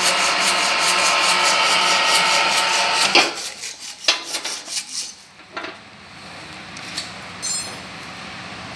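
A loud, steady rasping machine noise with a fast regular pulse cuts off about three seconds in. A few sharp knocks follow, and near the end comes a brief run of quick ticks.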